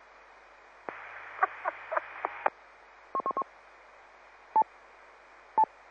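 FM two-metre repeater channel carrying short tone beeps: a burst of radio hiss with brief chirps, then a quick run of short beeps and two single beeps a second apart near the end.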